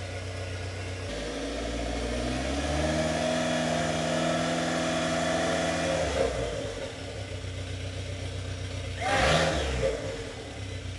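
Dodge SRT-4's 2.4-litre turbocharged four-cylinder engine revved up from idle, held high for a few seconds, then dropped back to idle, with a brief louder burst about nine seconds in. The turbo is blown and whistles, and a repair has not fixed it.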